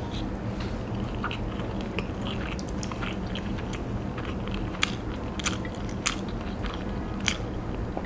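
Someone chewing and biting food, with irregular small crunches and wet clicks, over a steady low hum.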